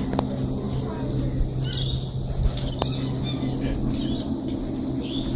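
Outdoor ambience: a steady high insect drone with a few short bird chirps over a low steady hum, and two light clicks.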